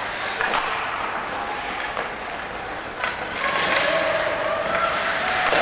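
Ice hockey skates scraping and carving on rink ice, with sharp clacks of sticks and puck now and then.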